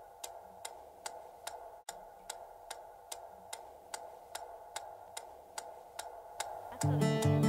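Clock ticking steadily, about two and a half ticks a second. Nearly seven seconds in, music with a plucked guitar starts.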